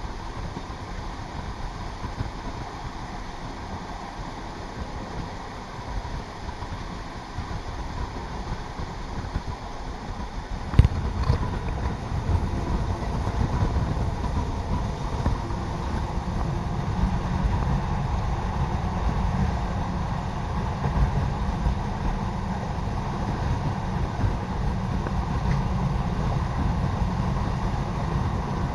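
ALn668 diesel railcar running, heard from on board: a steady rumble of engine and wheels. A single knock comes about 11 s in, after which the sound grows louder, and a steady low engine drone sets in from about 16 s as the railcar heads into the climb toward Modica.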